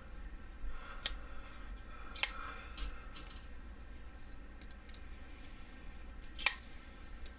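SOG Vision XR flipper folding knife being flipped open and shut, giving a few sharp clicks a second or more apart as the blade snaps open and closes on its XR lock. The loudest click comes near the end.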